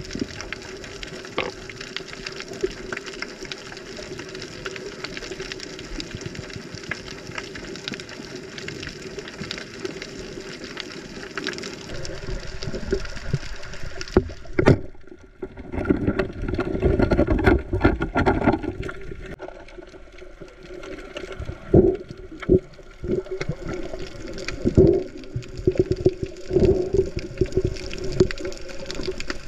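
A steady rushing hiss. About halfway through, the sound turns muffled and underwater: water gurgling and sloshing around a freediving spearfisher's camera, with bubbling surges and a few dull knocks.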